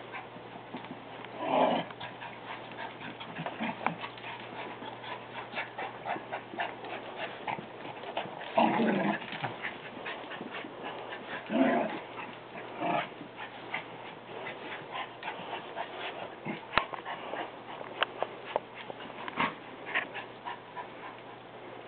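Two dogs playing tug-of-war with a rope toy: four short dog vocal sounds spread through, over a steady run of small clicks and scuffles from their feet and the tugged toy. A faint steady low hum underneath.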